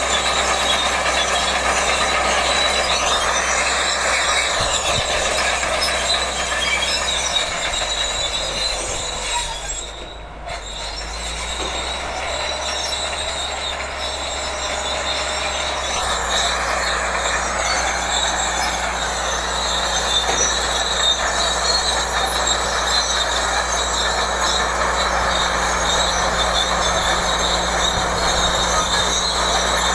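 Caterpillar D8 crawler tractor working under load as it pulls a deep-ripping plough: the diesel engine runs steadily while the steel tracks clank and squeal. The sound fades about a third of the way through as the machine moves off, then grows louder again as it comes back.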